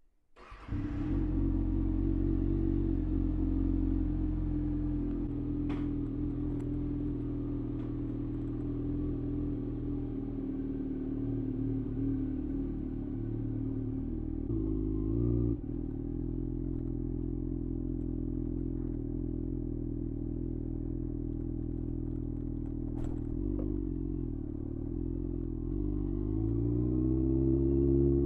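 2023 Kawasaki ZX-6R's inline-four engine through a LeoVince LV-10 carbon-fibre slip-on exhaust, starting up about half a second in and then idling steadily. A short blip of the throttle comes about halfway, and near the end the revs rise slowly.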